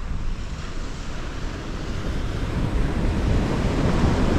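Surf breaking on a sandy beach, a steady rush of waves, with wind buffeting the microphone. It grows slightly louder toward the end.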